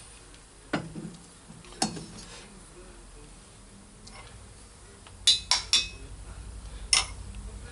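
Small steel valve-train parts clinking and knocking against the head and tools during disassembly of a cast iron Harley-Davidson Sportster cylinder head: about six sharp metallic clinks, three in quick succession a little after five seconds in.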